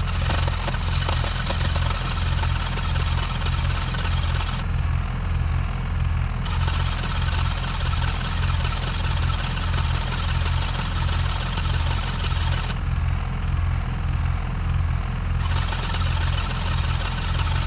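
The starter cranking the water-filled engine of a Chevy Aveo for a long stretch without it catching, a loud, steady, even pulse. The engine has water in place of its oil and will no longer fire.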